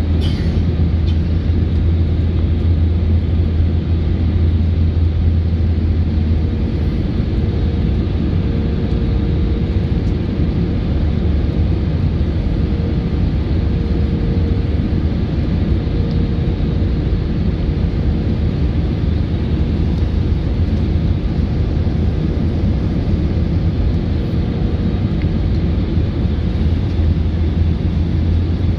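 Steady cabin noise inside an Airbus A320-family jet airliner on descent: jet engines and airflow as an even, deep rumble, with a faint steady tone above it for much of the time.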